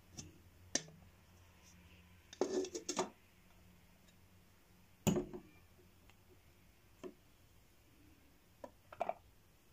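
A glass bell-jar dome and a bust being handled on a desk: a scattered series of short knocks and clinks with a brief stretch of rubbing about two and a half seconds in, the loudest knock about five seconds in.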